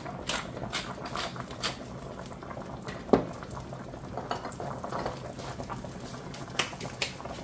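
A pot of potatoes at a rolling boil, bubbling steadily. Over it, a wooden pepper mill being twisted gives a run of short gritty clicks in the first second or so, with one sharp knock about three seconds in and a few more scattered clicks later.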